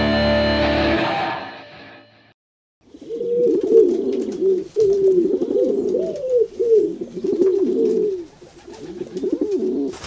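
Background music fades out. After a brief silence, pigeons coo over and over in low, rolling, gliding calls.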